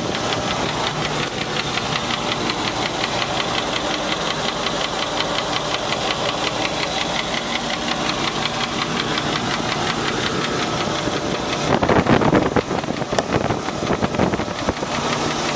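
Land Rover 4.6-litre V8 engine running with a rapid, steady knock keeping time with the engine, which the owner suspects is a bad rod bearing, a collapsed piston skirt or a bad lifter. The sound grows briefly louder and rougher about twelve seconds in.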